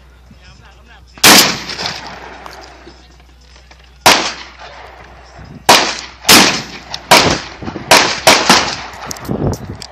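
Benelli M4 12-gauge semi-automatic shotgun firing about eight shots, each with a short ringing tail: two single shots a few seconds apart, then a quicker string of six shots roughly half a second to a second apart.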